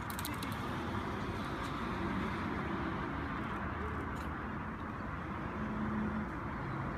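Steady outdoor background noise, a low rumble and hiss, with a few faint clicks about half a second in.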